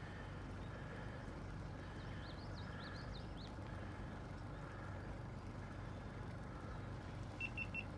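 Quiet lakeside ambience: a faint steady low rumble, with a bird chirping a short run of rising and falling notes about two seconds in and three quick high pips near the end.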